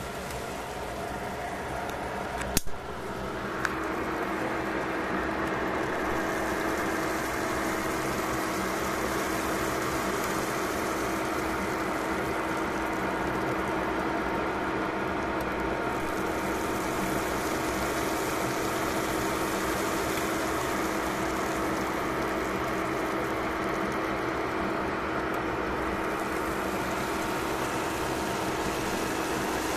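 A pot of vegetable broth simmering on a cooktop, over a steady machine hum. There is a sharp click about two and a half seconds in and a short blip a second later, after which the hum gets a little louder and takes on a steady low tone.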